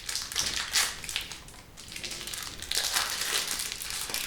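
Plastic wrapping crinkling as a sealed deck of board-game cards is unwrapped, in irregular rustles.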